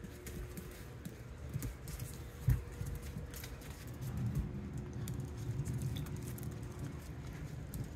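Australian Shepherd puppies moving about on a vinyl plank floor: many small clicks and patters from their paws and claws over close, rubbing handling noise, with one sharp thump about two and a half seconds in.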